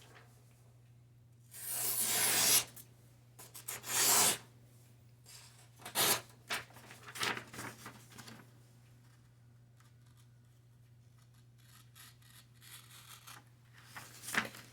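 A sharp balisong blade slicing through a sheet of paper in a series of quick cuts, each a short papery rip, the longest and loudest two in the first few seconds, fainter ones after. The clean slicing shows a keen edge, shaving thin curls off the paper.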